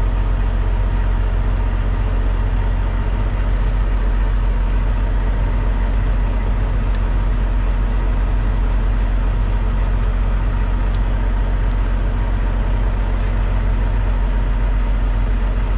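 Heavy truck's diesel engine running steadily: a constant low drone that holds the same pitch and level throughout.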